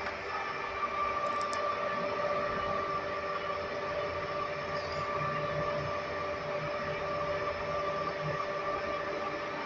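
Manual metal lathe running, its motor and gear train giving a steady whine over a low hum.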